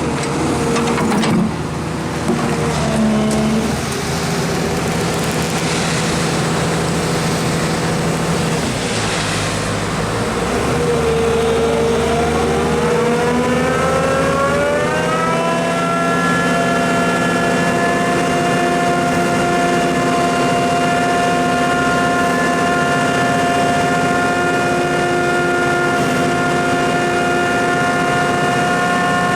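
Doosan DX140W wheeled excavator's diesel engine running, rising in pitch about halfway through and then holding steady at high revs.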